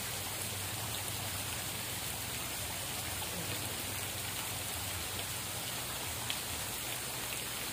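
Steady rushing hiss of water, even and unbroken, like falling water or rain.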